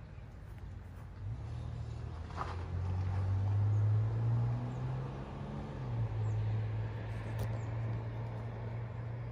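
An engine running with a low steady hum. Its pitch rises about a second in and drops back about six seconds in.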